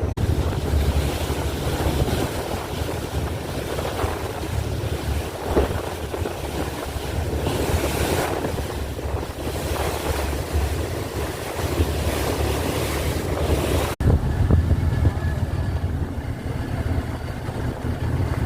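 Sea waves breaking and washing in, swelling and fading every few seconds, with strong wind buffeting the microphone as a constant low rumble.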